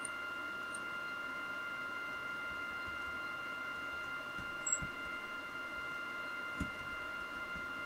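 Steady electrical hiss with a constant high whine from the recording setup. A few faint short clicks come past the middle, the loudest a little before halfway through the second half.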